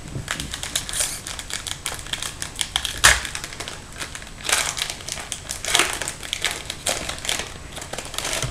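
Foil wrapper of a hockey card pack crinkling and tearing as it is opened by hand, in a string of short rustles and clicks, the sharpest about three seconds in.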